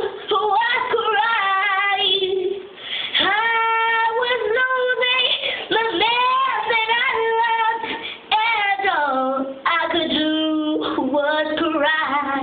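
A young girl singing solo, with no accompaniment heard, phrase after phrase with short pauses for breath between them.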